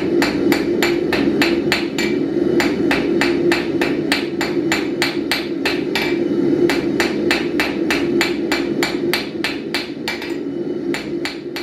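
Ball-peen hammer striking red-hot steel rod on an anvil: quick, even blacksmith blows, about three to four a second, with a break in the blows near the end. A steady low hum runs underneath.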